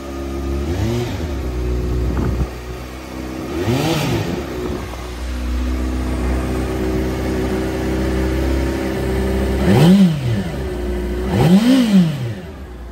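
Honda CBR600RR's 599 cc inline-four, fitted with an Akrapovic exhaust, idling steadily and blipped on the throttle four times, each rev climbing and dropping straight back to idle. The last two blips, near the end, are the loudest.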